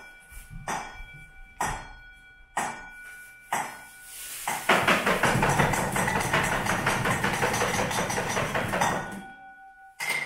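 Hand percussion played in an improvised piece: sharp strikes about once a second, each leaving a ringing metallic tone, then about half-way through a dense, rapid rattling shake that runs for about four seconds and stops, with one more strike at the very end.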